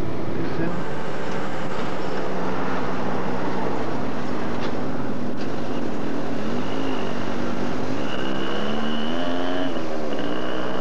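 Motor vehicle traffic on a street, with engines running. In the second half one engine's pitch rises and falls several times.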